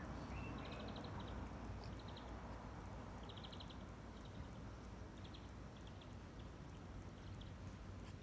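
Small birds chirping in short, rapid trills, repeated several times, over a steady low rumble of outdoor background noise.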